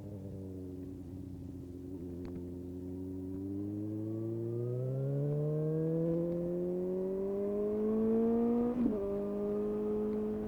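Suzuki GSX-S750's inline-four engine through a Yoshimura SQ11 exhaust with no dB killer and a decat. It holds steady, then pulls harder with pitch and loudness rising for several seconds, and drops in pitch with an upshift near the end before holding steady.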